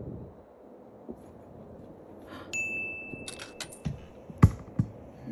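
Vending machine keypad being pressed: a single electronic beep held for about a second, with a quick run of button clicks, then two sharper, louder clicks near the end.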